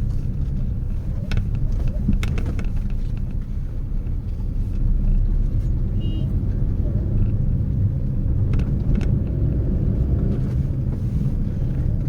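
Steady low rumble of a car on the move, with a few faint clicks.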